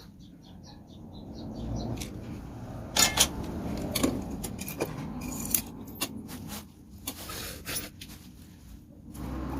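Metal tools and engine parts clinking and knocking on a motorcycle engine being taken apart, with a few sharp clanks about three to four seconds in.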